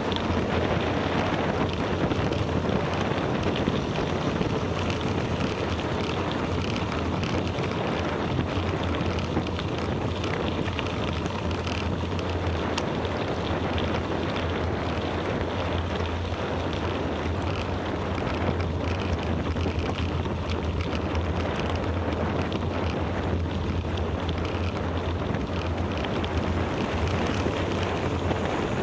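Steady wind rushing over the microphone of a camera riding along on a moving bicycle, with a constant low rumble and hiss and no breaks.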